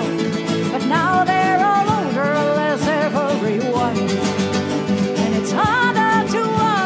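A woman singing over a flamenco guitar and a second plucked string instrument. Her voice comes in sung phrases, one starting about a second in and another near the end, over steady plucked chords.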